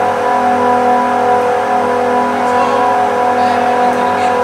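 Screw compressors running: a loud, steady machine drone with several even, unchanging tones.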